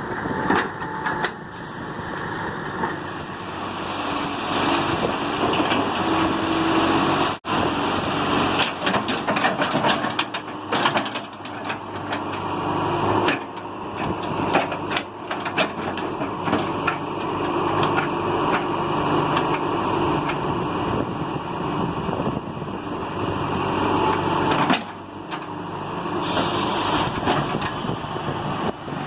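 Diesel engine of a John Deere 595D excavator running under working load, its note rising and falling as the machine digs and levels, with scattered short knocks from the working gear.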